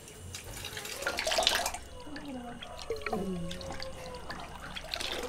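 Liquid splashing and dripping in a metal basin as a frame of candle wicks is dipped and lifted out of the melted wax. A louder splash comes about a second in, followed by scattered drips.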